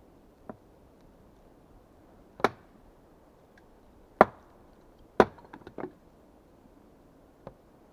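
Axe blows into wood: three loud, sharp strikes a second or two apart, each followed by a short ring. A few lighter knocks come just after the third, with a faint tap before the first and another near the end.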